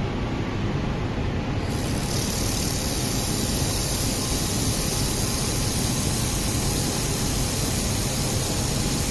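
Steady machine noise from a laser welding setup, with a high hiss that starts about two seconds in and then holds.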